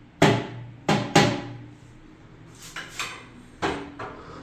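A window being shut: three loud sharp knocks in the first second or so, then lighter knocks and rattles.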